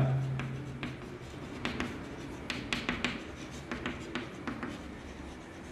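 Chalk writing on a blackboard: an irregular run of short taps and scratches as letters are written.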